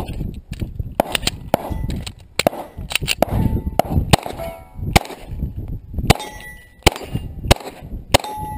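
A string of handgun shots fired in quick succession at steel plates, the hits ringing out with short metallic dings.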